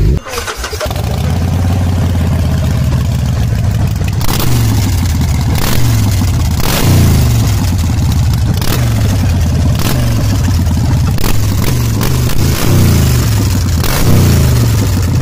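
Harley-Davidson V-twin idling, then from about four seconds in revved in short repeated throttle blips, roughly one a second, through its twin exhaust pipes.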